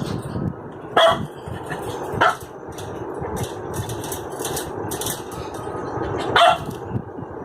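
Shih Tzu barking three times, single sharp barks spaced a few seconds apart, over steady background noise.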